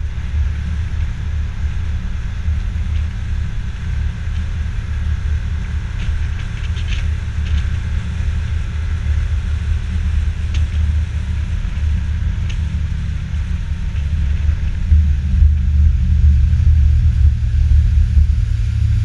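Aluminium fishing boat under way on its motor: a steady low rumble of engine, wind and water. The rumble grows louder about fifteen seconds in as the boat picks up speed, with a few light knocks in the middle.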